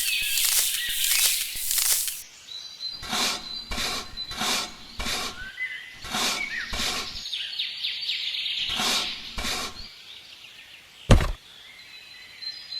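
A run of short rasping strokes, about two a second, pausing briefly midway, with birds chirping faintly and a single dull thud near the end.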